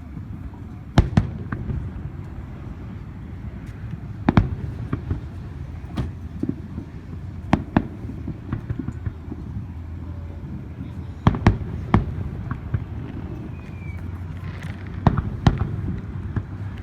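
Fireworks going off: about a dozen sharp bangs at irregular intervals, some in quick pairs, over a steady low rumble.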